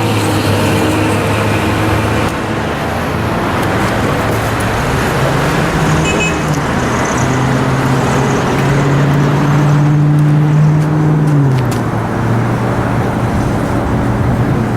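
Steady roar of heavy road traffic passing below, with the low drone of vehicle engines that shifts in pitch; one deeper drone swells and cuts off about eleven seconds in.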